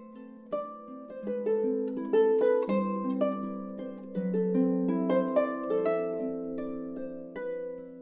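Background instrumental music of plucked notes that ring on and overlap in a flowing melody.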